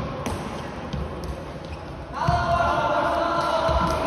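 Floorball players' footsteps and stick taps on a sports-hall floor, heard as scattered dull thuds and light clicks. About two seconds in, a long held shout starts and carries on.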